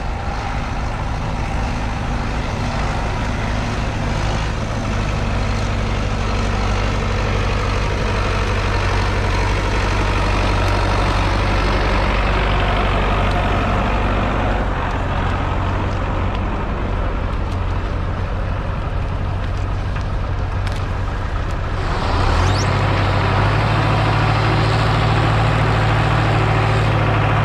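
MTZ-82 tractor's four-cylinder diesel engine running steadily while hauling birch logs. About 22 seconds in the engine note shifts and gets slightly louder.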